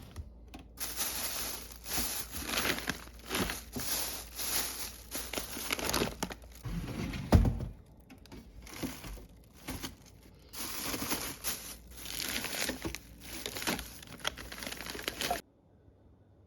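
Plastic food packaging crinkling and rustling in irregular bursts as frozen items are handled, with one sharp knock about seven seconds in. The sound stops suddenly near the end.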